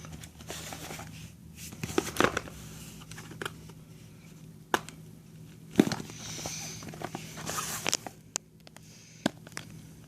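Packaging being handled and opened by hand: scattered clicks and knocks with short stretches of rustling, scraping and tearing, the loudest knock about six seconds in.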